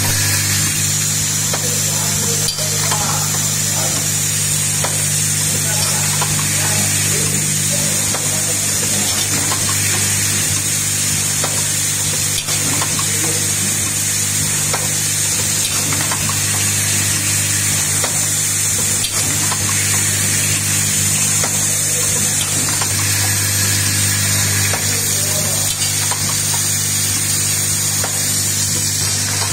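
Automated screw-driving assembly machine running: a steady low hum with a high hiss, probably from vibratory bowl feeders, overlaid with scattered light clicks and knocks from the part-feeding and screwdriving mechanism.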